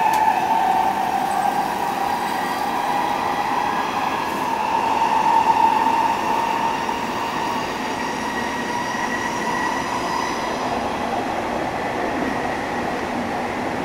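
Hanshin 1000 series electric train running at speed, heard from inside the car: a continuous rumble of wheels on rail with a steady hum that is strongest in the first half and fades after the middle.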